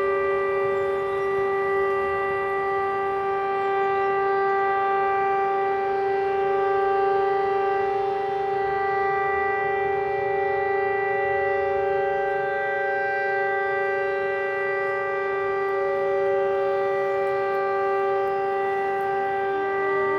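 Civil defence warning siren sounding one steady tone that neither rises nor falls. It is a training alarm, not a real alert.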